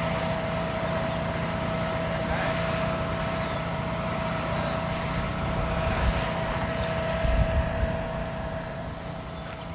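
Steady road and engine noise of a vehicle, heard from inside, with a constant faint whine and low wind buffeting that swells a couple of times in the second half.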